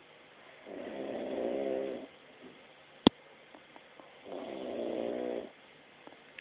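A person snoring: two long snores, each just over a second, about three and a half seconds apart. A single sharp click falls between them.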